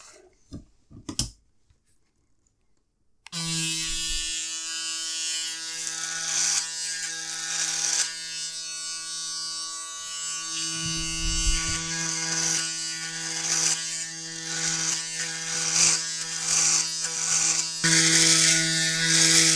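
Braun Series 9 electric shaver switching on about three seconds in, after a few faint clicks, and humming steadily as it is worked over a seven-day beard, the cutting noise rising and falling with each stroke.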